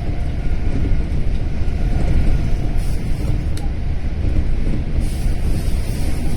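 Steady low rumble of an electric commuter train running on the rails, heard from inside the passenger car, with faint rail ticks near the middle.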